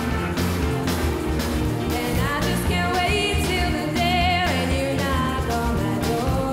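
Live blues band playing with drums, bass guitar and saxophones. A female singer comes in with the vocal about two seconds in, over a steady beat.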